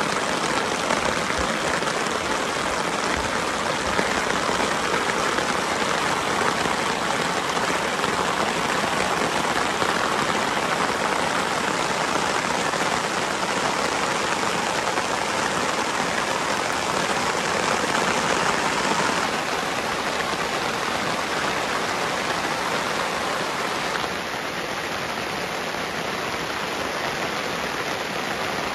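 Heavy rain falling steadily on a camp tarp overhead and the grass around it, a little softer in the last few seconds.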